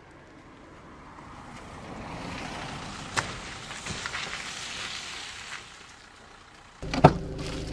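A van approaching on a wet road and pulling up: tyre hiss swells, holds, then fades as it stops. Near the end the van's engine idles and a door latch clicks loudly as the door is opened.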